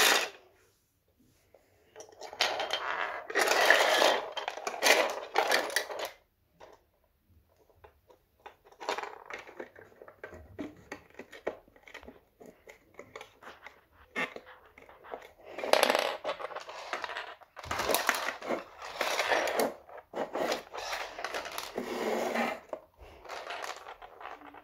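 Small hard plastic toy parts clattering and clicking on a laminate floor as they are handled and pressed together, in two stretches: one of a few seconds near the start and a longer one through the second half.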